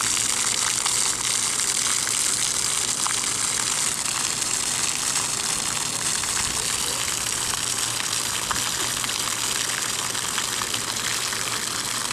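Arcing water jets of a splash-pad fountain spraying and splashing down onto wet concrete: a steady hiss of falling water.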